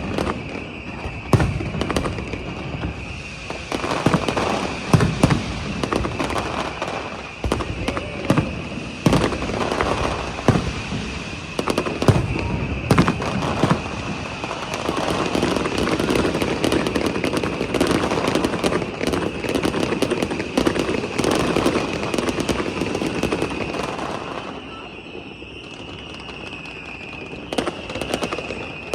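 Fireworks display: many sharp bangs of shells bursting, one after another, turning to a dense continuous crackle in the middle, with a steady high-pitched tone underneath.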